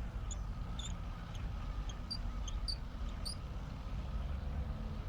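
Wind rumbling on the microphone, with a faint steady hum and a run of short, high chirps every half second or so that stop a little past halfway.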